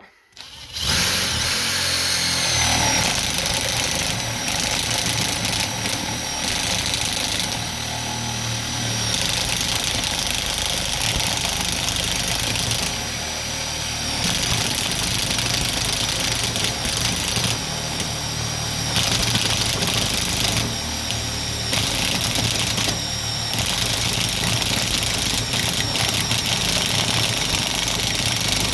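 Ferrex cordless impact driver hammering steadily as it bores a 25 mm paddle bit through wood, starting about a second in.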